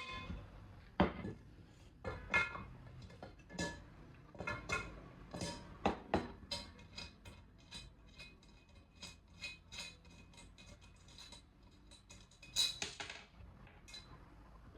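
Irregular clinks and taps of a small screw, nut and screwdriver against a cookware lid as a lid handle is screwed on, with a louder cluster of clinks near the end.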